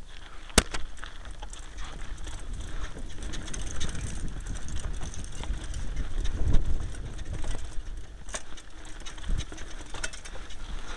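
2012 Kona Blast mountain bike ridden fast down a dirt forest trail: tyre noise, with the bike's chain and frame rattling and clicking over the bumps. A low wind rumble on the microphone swells and fades, and there is one sharp knock about half a second in.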